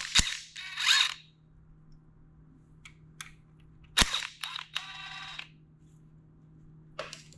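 Metal hand tools clicking and clanking: sharp knocks of a socket and bit being handled, with a short run of rapid clicking like a ratchet wrench about four and a half seconds in.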